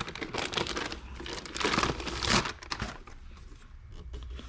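Packaging crinkling and rustling as a heavy soldering station is pulled out of its box and unwrapped, busiest in the first three seconds and loudest around two seconds in.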